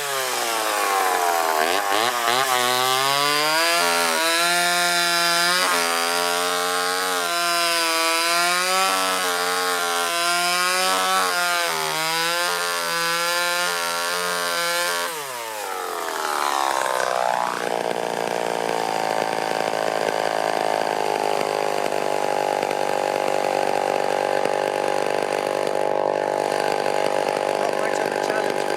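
Homelite Super XL two-stroke chainsaw running at high revs under load, its pitch wavering as it cuts into a log. About fifteen seconds in, the revs drop and it settles into a steady idle.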